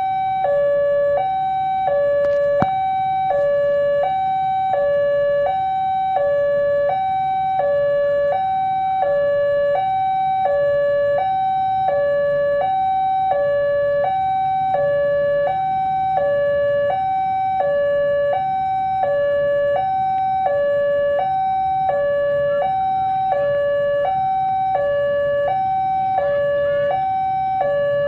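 Electronic railway level-crossing warning bell (genta) sounding from the horn loudspeaker on the crossing signal post: two alternating tones, high and low, repeating evenly at about one pair a second. It signals that the crossing is closed for an approaching train.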